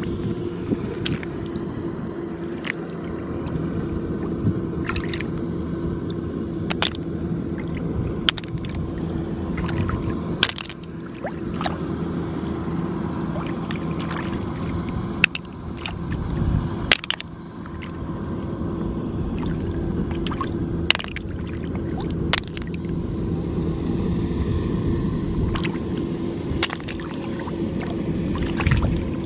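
Scattered sharp clicks of freshwater snail shells knocking together as they are handled and dropped into a wicker basket, over water sloshing and a steady low hum.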